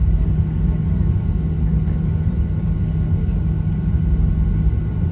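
Cabin noise of a Boeing 737-800 taxiing after landing: a steady low rumble with a constant hum from its CFM56 engines.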